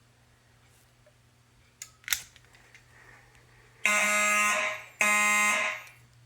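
Fire alarm horn sounding two short beeps, each just under a second and about a second apart: the walk-test code for zone 2, given when a detector on that zone is tripped. Two sharp clicks come about two seconds earlier.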